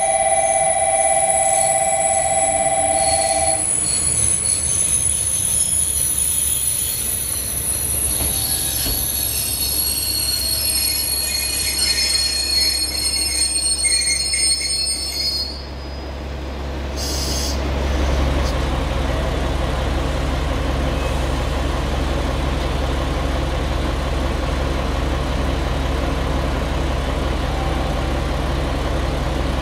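A steady electronic station warning tone cuts off a few seconds in. A JR Kyushu KiHa 47-series diesel railcar's brakes and wheels squeal as it pulls in and slows to a stop. After a short sharp sound, the diesel engine idles steadily.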